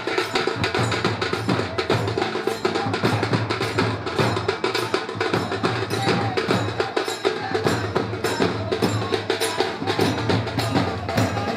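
Procession percussion music: drums with fast, even clacking strikes of hand percussion, playing without a break.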